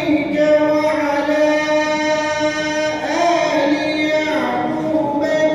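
Young male reciter chanting the Qur'an in Arabic in the melodic recitation style (tilawah), drawing out long held vowels. The pitch steps and wavers about three seconds in before settling on another sustained note.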